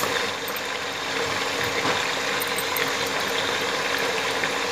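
Mutton frying in hot mustard oil in a pressure cooker: a steady sizzling hiss with faint crackles.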